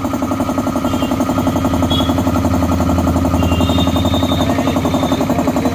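Belt-driven piston air compressor running steadily, its pump chugging in a fast, even rhythm as it pumps air into the tank.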